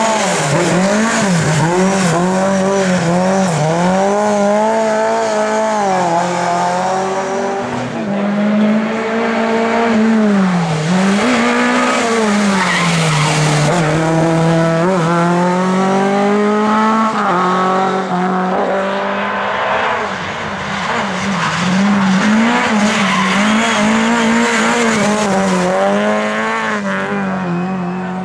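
Four-cylinder Lada race car engines revving hard, their pitch climbing and dropping again and again through gear changes, with tyres squealing and skidding through corners.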